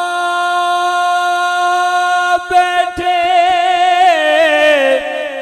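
A man singing a Punjabi devotional naat solo. He holds one long steady note, then moves into wavering, ornamented notes from about two and a half seconds in.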